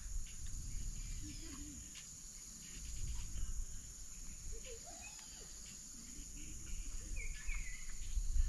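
Woodland ambience: a steady high-pitched insect drone with a few scattered bird chirps, including a short twittering call near the end, over a low rumble that grows louder toward the end.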